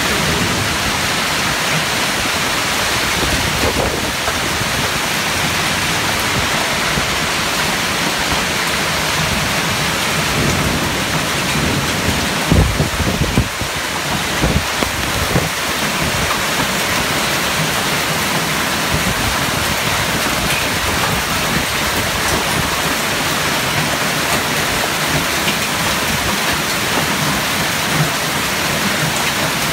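Heavy downpour of rain pouring steadily, with a few brief low rumbles and thuds about halfway through.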